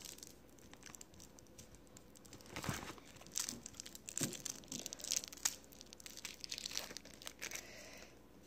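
Plastic candy wrapper crinkling and tearing as it is handled, in irregular crackles that come louder in spurts.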